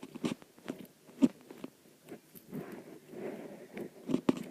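Foam squishy toy being squeezed and handled: soft crinkly rustling with scattered small clicks and taps.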